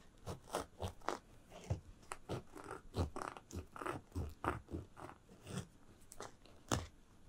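A kitchen knife sawing through the hard crust of a crusty bread loaf: a run of crunching strokes, about three a second.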